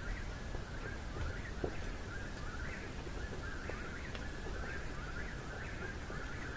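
Short chirping calls repeated steadily, about two a second, most likely from a bird.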